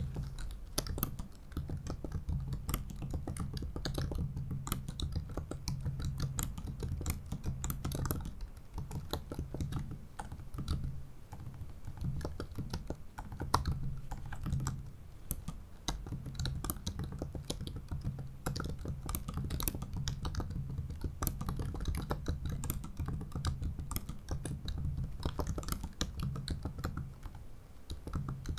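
Typing on a 2017 MacBook Pro 15-inch's built-in butterfly-switch keyboard: a dense, steady stream of key clicks that begins suddenly.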